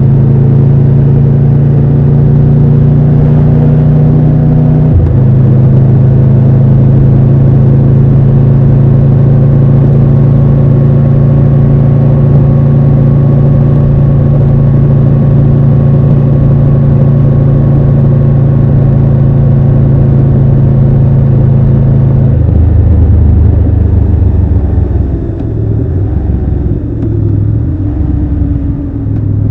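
Triumph Tiger 1200 Rally Pro's three-cylinder engine pulling at steady revs under way, with a quick gear change about five seconds in. Later the throttle closes and the engine note drops to a lower, uneven beat as the bike slows.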